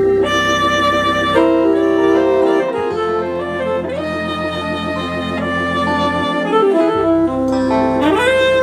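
Electronic keyboard playing a saxophone voice over an organ backing tone and held low bass notes, with the lead bending up in pitch near the end.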